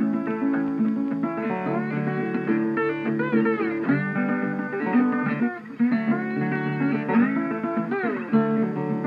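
Background music played on guitar, with many notes sliding up and down in pitch.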